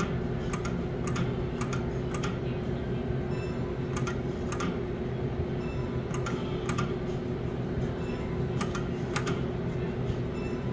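Irregular sharp clicks, about a dozen, as a finger taps the touchscreen of a skill game machine, over a steady low hum.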